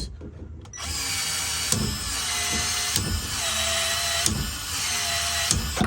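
Milwaukee ProPex expansion tool running, its motor whirring for about five seconds from about a second in, pulsing about once a second as the head expands the end of a PEX pipe and its ring.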